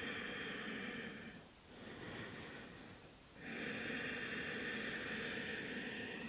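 A woman breathing slowly and audibly while holding a yoga stretch. A long breath fades out about a second and a half in, a shorter, fainter one follows, and another long breath runs from about three and a half seconds in.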